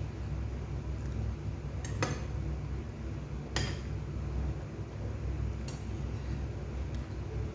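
Cutlery clinking against a plate in four sharp taps, spread a second or two apart, over a steady low hum.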